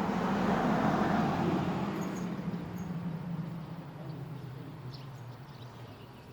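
A vehicle passing by, its engine hum and rushing noise rising to a peak about a second in, then slowly fading away.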